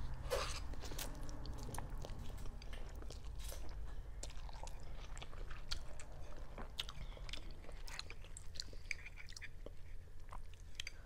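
A person eating instant noodles close to a clip-on microphone. A slurp of noodles comes in the first half second, then chewing with many small wet mouth clicks and smacks.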